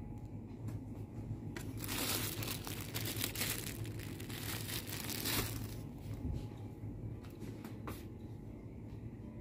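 Thin plastic bread bag crinkling as a loaf is picked up and handled. The crinkling starts about two seconds in and lasts about four seconds, over a steady low hum.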